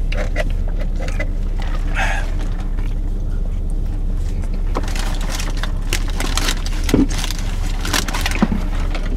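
Steady low hum of a car idling, heard inside its cabin, with scattered short rustles and clicks of sandwich handling and eating, more of them in the second half.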